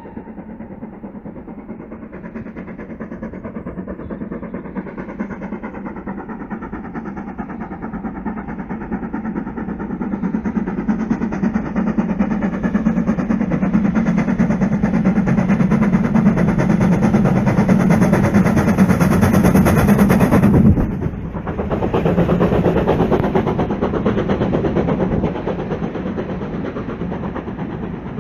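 GWR Manor class 4-6-0 steam locomotive No. 7812 Erlestoke Manor working hard up a steep bank, its exhaust beats growing steadily louder as it approaches. About three-quarters of the way through the sound drops suddenly as the engine passes, and the coaches rumble by behind it.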